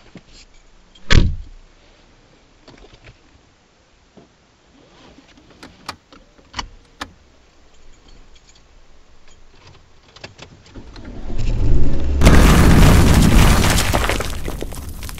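Drama sound effects. A heavy thump comes about a second in and a few sharp clicks follow a few seconds later. Then a loud crash builds from about eleven seconds, hits full strength a second later and fades slowly.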